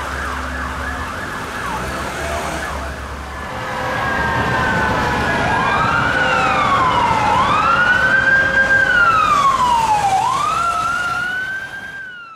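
Police car's Whelen Alpha electronic siren sounding. A quicker rising-and-falling tone comes first, then from about four seconds in a louder slow wail sweeps up and down about every two and a half seconds. It fades out at the very end.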